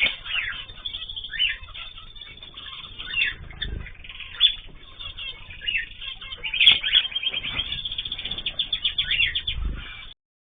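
Pet cage birds chirping and calling, with wing flapping: many short, sharp calls, several of them sliding in pitch, and a quick run of repeated notes in the second half. A couple of low thumps, and the sound cuts off abruptly near the end.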